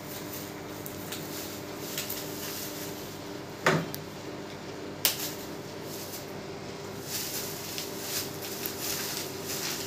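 Bubble wrap being handled and pulled off a long air rifle, rustling and crinkling, with a sharp knock about four seconds in and a click a second later. A steady low hum runs underneath.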